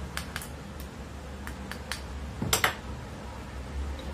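Light metal clicks and taps of tools and ceiling-fan parts being handled at a workbench, with a louder metallic clatter about two and a half seconds in, over a low steady hum.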